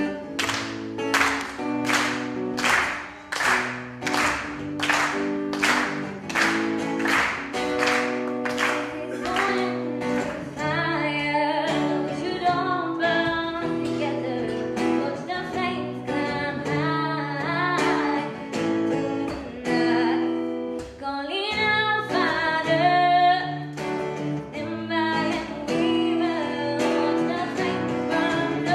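Acoustic guitar strummed in a steady rhythm, about two strums a second, with a woman singing into a microphone over it. The strumming is most prominent for the first ten seconds or so, then the singing voice comes to the front.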